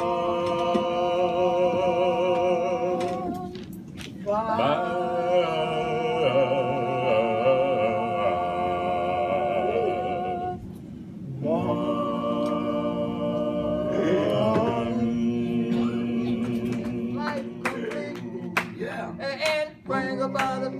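Male gospel trio singing a cappella in close harmony, holding three long chords with vibrato, each several seconds, with short breaks between them; shorter notes follow near the end.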